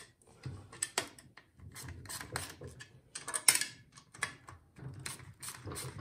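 Metal hand tools clicking and clinking irregularly as the exhaust bolts are worked loose on a Jiffy ice auger's two-stroke engine.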